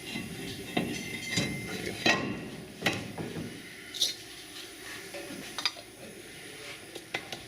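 Metal tools and brake parts clinking and knocking, a run of separate sharp clinks at uneven intervals, the loudest about two seconds in.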